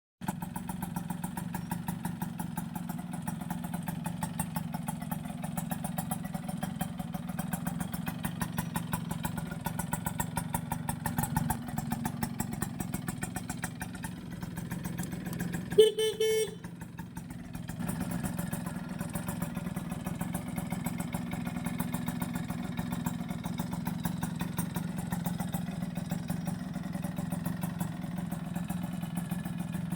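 1995 Suzuki Tornado GS's 110 cc single-cylinder two-stroke engine idling steadily with even, rapid firing pulses. About halfway through a short horn beep sounds for under a second.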